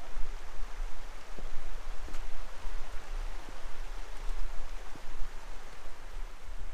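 Steady rushing of a shallow creek, with wind rumbling on the microphone and a few faint knocks.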